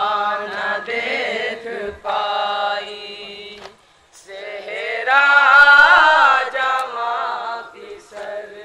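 A group of boys singing a nauha, a Shia mourning elegy, together into a microphone. The singing breaks off briefly about four seconds in, then comes back louder.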